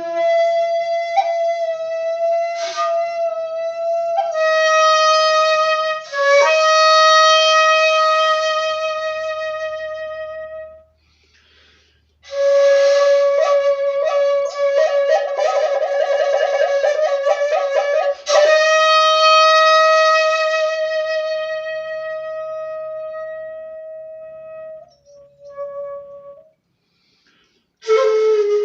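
Jinashi shakuhachi 1.7, a Japanese end-blown bamboo flute, played solo in long held breathy notes. The notes swell and fade away, with a short pause between two phrases and a passage of a wavering, shaken note in the middle.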